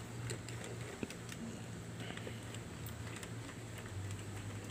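Socket ratchet wrench clicking in short irregular runs as it is worked back and forth on a crankcase cover bolt, over a low steady hum.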